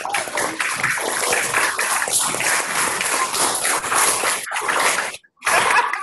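Applause: classrooms of schoolchildren clapping, heard over a video-call link. The sound cuts out briefly about five seconds in.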